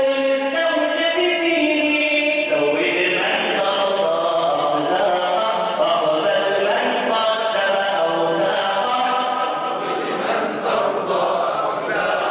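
A man singing an Arabic nasheed with no instruments, in long, drawn-out melodic lines, breaking off briefly near the end.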